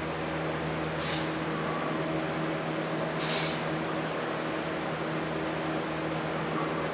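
Steady mechanical hum with two short hissing bursts, about a second in and about three seconds in.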